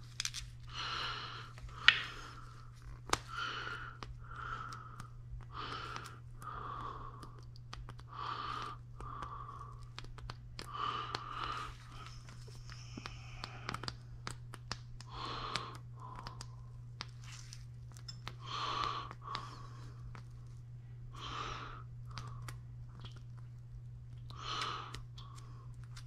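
A person breathing close to the microphone, in-and-out pairs every few seconds, while gloved hands handle a small metal engine part with light rubbing and a few sharp clicks, the loudest about two seconds in. A steady low hum runs underneath.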